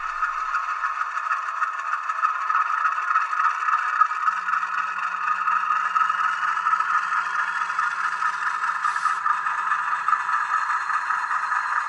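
H0-scale model diesel locomotive and hopper cars rolling along the track: a steady rattle and scrape of small metal wheels on the rails and the drive running. A faint whine rises in pitch partway through as the train picks up speed.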